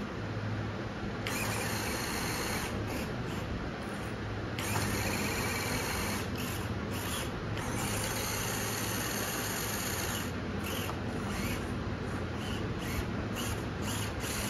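Small electric motors and gear drives of two RC scale trucks, a Hummer H2 and a Land Rover Defender, whining as they pull against each other in a tug of war. The whine surges in several long bursts of throttle over the first ten seconds, then in shorter blips.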